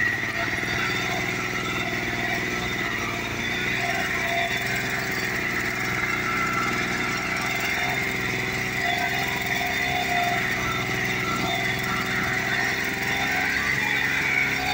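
Vari Agzat walking tractor's Jikov 1453 engine running steadily under load, pulling a cultivator-and-roller combinator through the soil.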